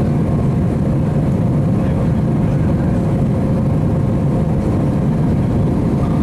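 Steady cabin noise inside a flying Airbus A319-131: a constant low rumble of its IAE V2500 engines and the airflow, with faint steady engine tones above it.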